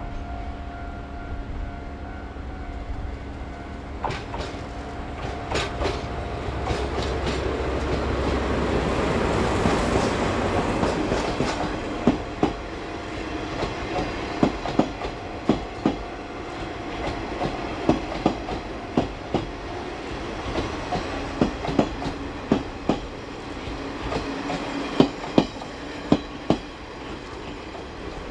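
Diesel locomotive DE701 running slowly past, its engine drone swelling and loudest about ten seconds in. The towed KiHa 30/37/38 railcars then roll by at low speed, their wheels clicking over the rail joints in paired clicks about once a second.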